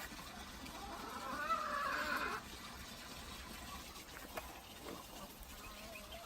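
An animal call with a wavering pitch, lasting about a second and a half, starting about a second in, over a steady faint background.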